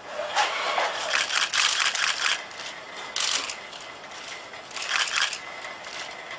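HRP-4 humanoid robot's electric joint motors and gears whirring and rattling as it lifts its arms into a carrying pose. There is one longer burst of about two seconds near the start, then two short bursts.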